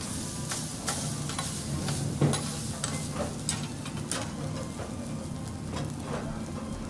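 Food sizzling on a hot teppanyaki griddle while a flat steel spatula scrapes and taps the plate, tossing a stir-fry of bitter melon and egg. One louder clack of the spatula comes a little over two seconds in.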